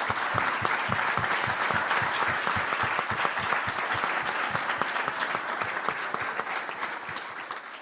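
Audience applauding: many people clapping steadily, tapering off near the end.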